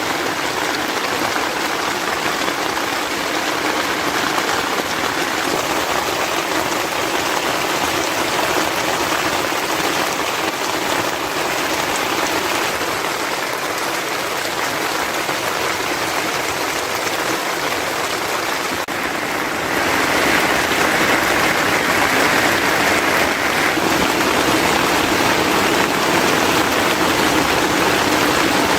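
Heavy rain falling steadily, a dense even hiss of drops, growing louder about two-thirds of the way through.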